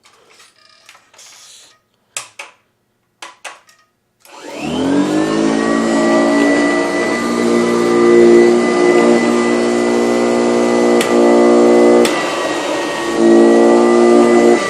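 A few sharp clicks, then a Kirby Classic Omega upright vacuum cleaner's motor switches on about four seconds in, whining up to speed within a second and running steadily, its loudness shifting a little near the end.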